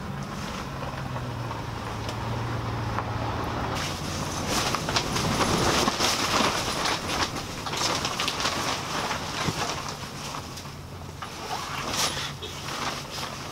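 Strong wind gusting around the camp shelter, swelling about four seconds in, with a low hum that stops at the same moment. Light clinks of a spoon against dishes run through it.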